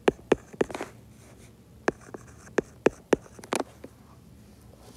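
Stylus writing on an iPad's glass screen: a series of sharp, irregular taps and clicks as words are handwritten, bunched in a quick cluster about three and a half seconds in.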